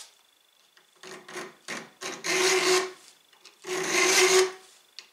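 Hand file worked across a knife blade to cut decorative file-work (guillochage): a few short light strokes, then two longer strokes about a second and a half apart.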